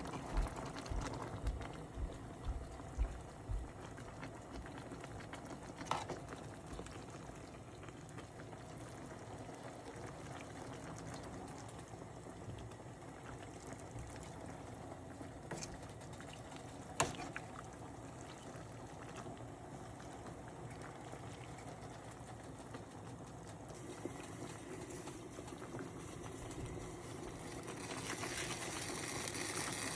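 A pot of soup bubbling at a boil, a steady hiss. A few low thumps come in the first few seconds, two sharp clicks come later, and the hiss grows louder near the end.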